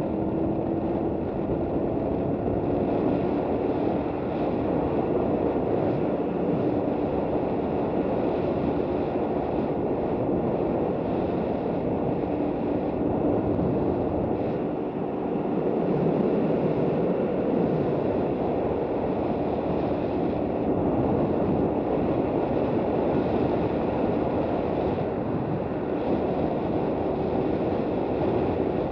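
KTM 990 Adventure's V-twin engine running steadily at riding speed, mixed with wind rushing over a helmet-mounted camera's microphone.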